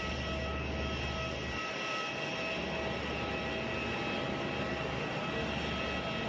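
Parked Airbus jet airliner running on the ramp: a steady high whine over a continuous rush of noise, unchanging throughout.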